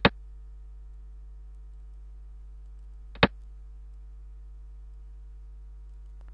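Two sharp clicks, one right at the start and one about three seconds in, each as a piece is moved on a computer xiangqi board, over a steady low electrical hum.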